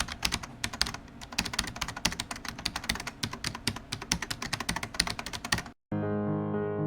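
Fast, irregular clicking of keys being typed on a keyboard, which cuts off abruptly just before six seconds in; after a split second of silence, music with sustained keyboard notes starts.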